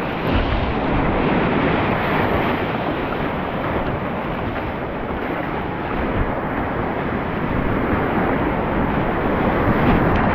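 Whitewater rapids rushing and churning around a kayak: a steady, loud rush of turbulent water.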